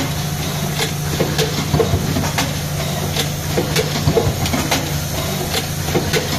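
Plastic-card hot stamping machine running: a steady mechanical hum with repeated clicks and knocks, roughly two a second, from its card-feed and stamping mechanism.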